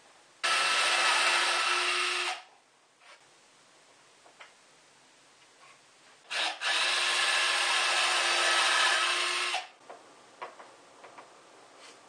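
Cordless drill run twice into plywood and a pine 2x2 brace, each time a steady motor whine at constant speed, the first about two seconds long and the second about three, stopping sharply. Small clicks and handling knocks come between the two runs.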